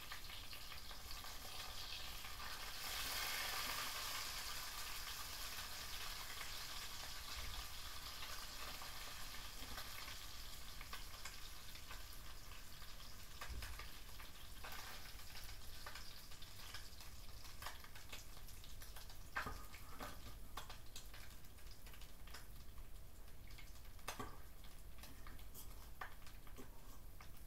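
Leftover oil in a frying pan, just used to fry tilapia, sizzling with the burner off, with occasional crackles. It swells a few seconds in, then slowly dies down as the pan cools.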